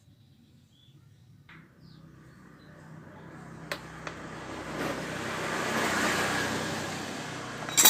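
A motor vehicle passing by, its sound swelling to a peak and fading again, with a sharp loud clack near the end.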